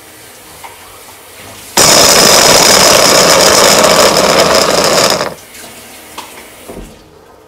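Electric food chopper's motor and blades running in one loud burst of about three and a half seconds, with a steady high whine, chopping onion, garlic and ginger in its plastic bowl. It starts suddenly about two seconds in and stops.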